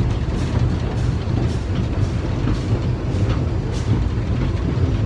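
Steam locomotive running along the line, heard from its footplate: a steady running rumble of engine and wheels on the track.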